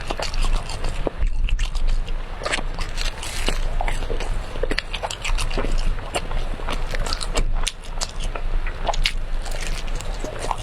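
A person chewing and biting brown sugar cake close to the microphone, with many irregular short clicks of mouth and food sounds.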